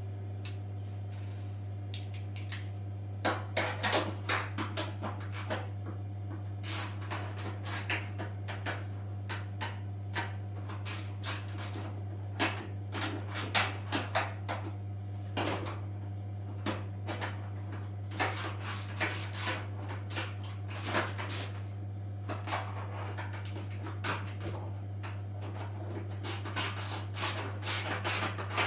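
Scattered clicks, knocks and light clatter of hands and tools working on the parts of a Samsung washing machine, over a steady low hum.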